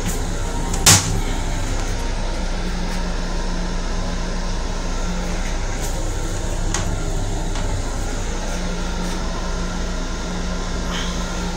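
Steady hum of an LIRR M7 electric railcar, heard inside its small restroom. A sharp click comes about a second in, and a few faint ticks follow later.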